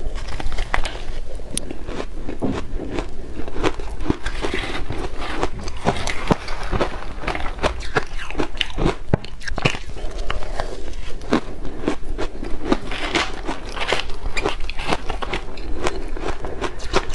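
Shaved ice chunks coated in matcha powder bitten and chewed close to a clip-on microphone: a continuous run of dense, crisp crunches and crackles.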